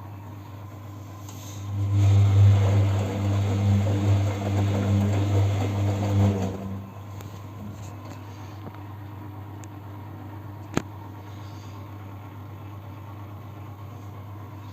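Siemens front-loading washing machine in its final rinse: the drum motor starts and turns the drum through the rinse water for about four and a half seconds, then stops, over a steady low hum. A single sharp click comes near the end.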